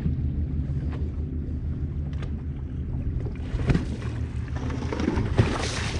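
Boat's outboard motor running steadily with a low hum, with water rushing and splashing against the hull twice, the louder one near the end.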